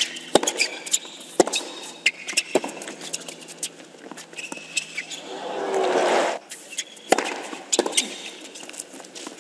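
Tennis ball struck by racquets and bouncing on a hard court during rallies: sharp pops, irregular, roughly once a second. A brief swell of noise rises and falls about halfway through.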